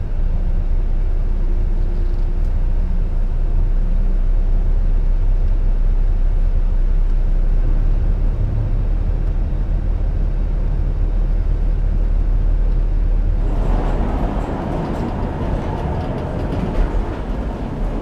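Volvo truck's diesel engine running with a steady deep rumble as the truck is driven. About three-quarters of the way through, the rumble gives way to a rougher, higher noise, with a single knock near the end.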